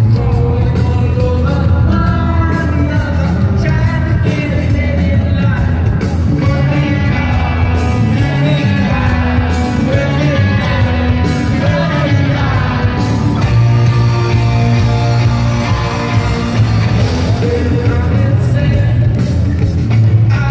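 Live rock band playing loudly: electric guitars and drums, with a lead singer singing into a microphone.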